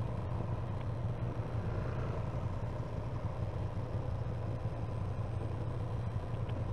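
Motorcycle engine running steadily at low speed in slow traffic, a constant low rumble.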